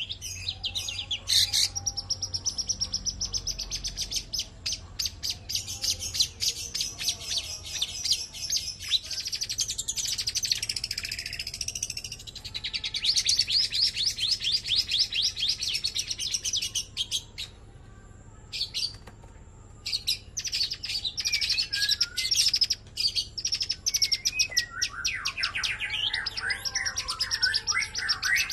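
Long-tailed shrike singing in long, rapid-fire strings of sharp repeated notes and chattering trills. The song breaks off for about two seconds past the middle, then resumes with lower warbling phrases near the end.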